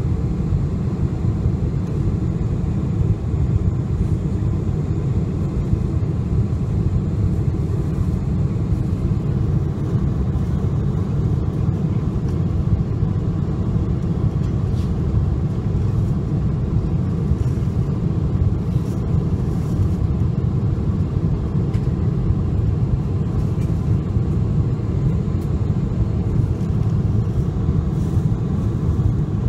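Steady low rumble of cabin noise inside a Boeing 747-400, even and unchanging throughout.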